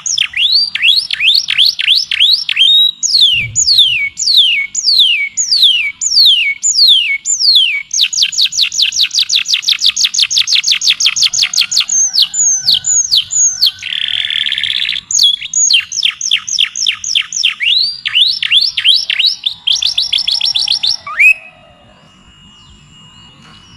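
A songbird singing series of repeated downward-sweeping notes, some slow at about two a second and others as fast rolling trills, with a short harsh buzzy note about halfway through. The song stops near the end, leaving only a faint steady tone.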